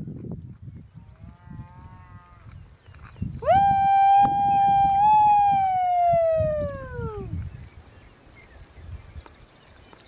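A cow moos faintly about a second in, then a loud, long, high call to the cattle sounds, held at one steady pitch and sliding down in pitch as it ends.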